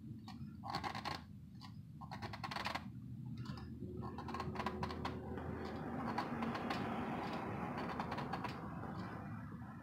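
Spin-on oil filter being turned by hand onto its threaded base, the metal can rasping and clicking under the fingers: a few short scrapes at first, then a steady scraping from about four seconds in.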